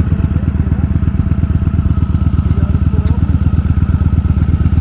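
Honda Shadow V-twin cruiser engine idling steadily, loud and close, with an even, fast low throb.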